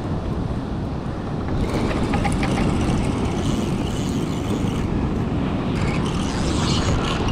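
Steady rumble of wind on the microphone and surf breaking on the beach. A few light clicks come about two seconds in and again near the end.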